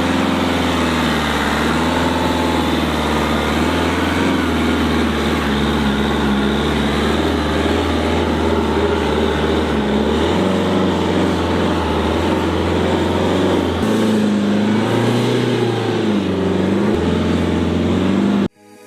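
Tata Harrier's diesel engine pulling under load off-road, its revs rising and falling unevenly. The sound cuts off abruptly just before the end.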